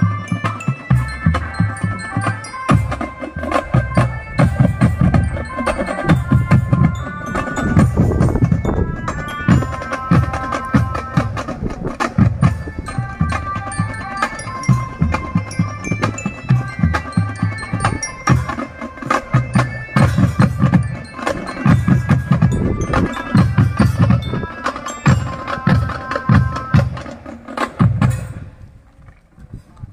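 A non-brass marching drum band playing: a dense pattern of drum strokes under a pitched melody on mallet percussion. The playing stops near the end.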